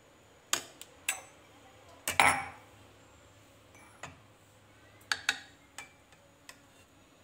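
A spoon clinking against a bowl and an empty glass jar set down on a hard countertop: a string of short sharp clinks and knocks, the loudest a ringing knock about two seconds in, with a quick cluster of knocks around five seconds in.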